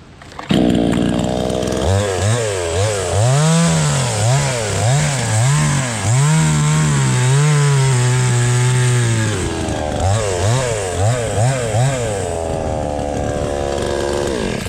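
Cheap gas chainsaw revving in quick repeated throttle pulses as it cuts into a log, held at a steady high pitch for a few seconds in the middle, then pulsing again before the engine pitch falls and the sound drops away at the very end.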